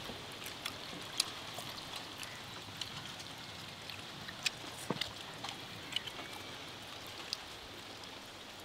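Hands pulling apart whole roasted masala chickens on a banana leaf: scattered small wet clicks and crackles of tearing meat over a steady background hiss.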